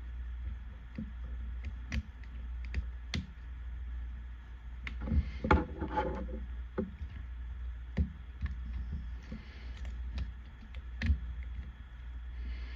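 Plastic clicks and taps from a Transformers Air Raid action figure as its parts are folded and clipped into place by hand, scattered irregularly, with a brief pitched sound about five to six seconds in. A steady low hum runs underneath.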